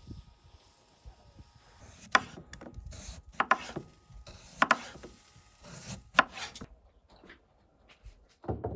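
Kitchen knife slicing a beetroot into rounds on a wooden cutting board: a run of cuts, each ending in a knock of the blade on the board, spaced half a second to a second apart. Near the end comes a single heavier thump.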